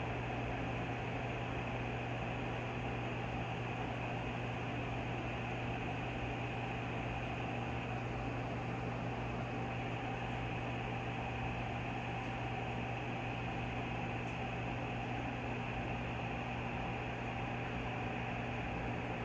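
Steady low hum with an even hiss from running reef aquarium equipment, unchanging throughout.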